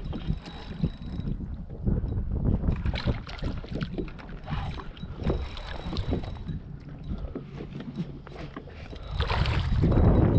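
Wind buffeting the microphone on a small boat, with scattered knocks and handling noises. The wind noise swells louder about nine seconds in.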